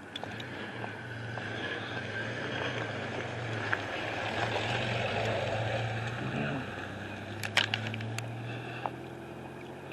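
Street traffic: a vehicle's engine hum and tyre noise swelling as it passes and fading again, with a few sharp clicks near the end.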